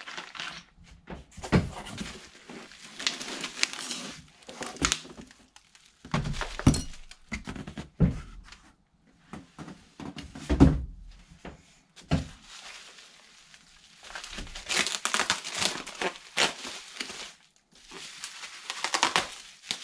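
Plastic packaging and bubble wrap crinkling and rustling as they are handled and unwrapped, with several dull thumps of parts and the box being set down on a table in the first half.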